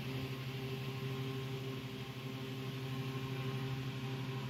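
Steady electrical hum of grow-tent equipment, a low mains hum with a buzzy edge that holds constant throughout.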